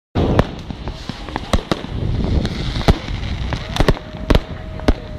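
New Year's fireworks and firecrackers going off all around: many sharp, irregular bangs over a continuous low rumble of distant explosions, with a faint steady tone in the last second or so.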